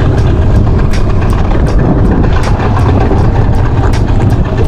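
A boat engine running steadily, a low rumble.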